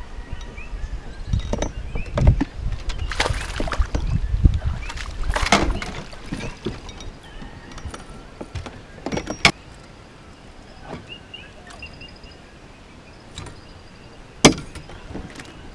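A hooked peacock bass splashing at the surface as it is reeled in beside a small metal boat, with several splashes in the first half. Later come a couple of sharp knocks against the boat, the loudest near the end.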